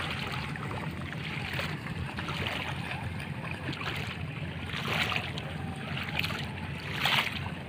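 Feet wading through ankle-deep seawater, with splashing swishes about every few seconds over a steady low rumble.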